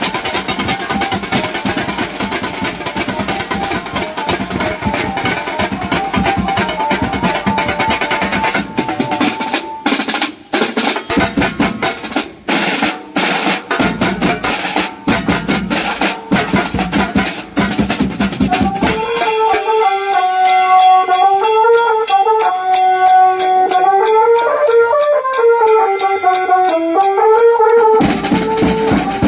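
A Maharashtrian street banjo band plays: an electronic keyboard melody through a horn loudspeaker over snare, tom and big bass-drum beats. About nine seconds in the melody gives way to drum breaks and rolls. Around nineteen seconds a two-part melody returns with only light high beats keeping time, and the full drums come back near the end.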